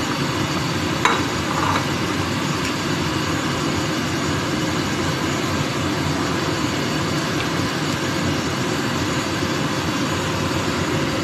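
Pot of vegetable soup at a rolling boil, bubbling steadily, with a couple of light knocks about a second in.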